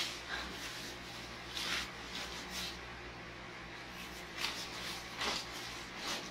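Jacket fabric rustling in several brief swishes as the jacket is pulled on and straightened at the front.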